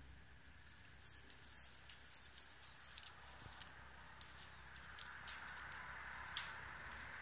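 Red deer stag cropping grass at close range: a run of faint, irregular crisp clicks and rips, dense for the first few seconds and then thinning to a few isolated clicks.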